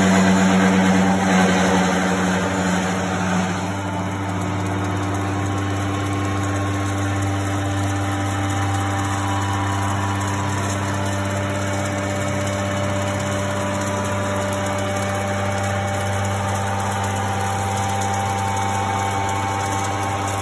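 Huron LU8 CNC bedmill's spindle and drives running while its cutter mills along a metal bar: a steady machine hum with several held tones. It is louder and hissier for the first few seconds, then settles to an even drone.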